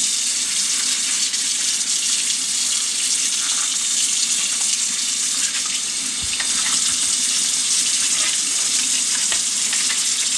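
Kitchen sink faucet running in a steady stream, the water splashing into the basin.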